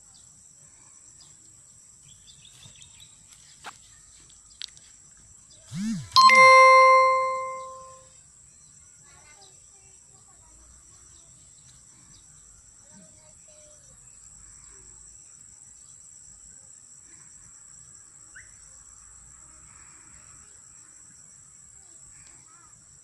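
Insects droning steadily at a high pitch. About six seconds in, after two short low sounds, a single loud bell-like ding rings out and fades away over about two seconds.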